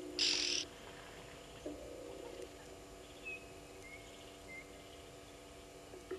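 Waterhole ambience: a short, harsh, hissing burst near the start, then three faint, short, whistled bird notes. A low steady hum comes and goes twice.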